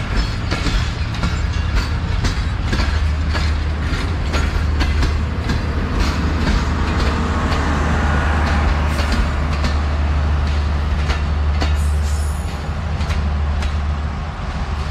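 Pakistan Railways passenger coaches passing close by, the wheels clicking in quick succession over the rail joints over a heavy low rumble. The clicks thin out and the sound eases in the last few seconds as the end of the train moves away.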